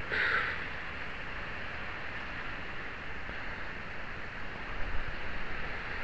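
Steady low background hiss, with faint handling noise from fingers rubbing grease onto a rusty metal part.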